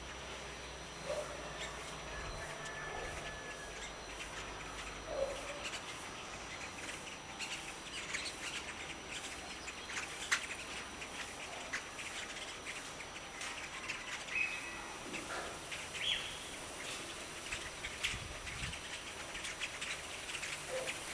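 Many birds chirping and calling in the dawn chorus: a steady scatter of short high chirps and clicks, with now and then a lower call.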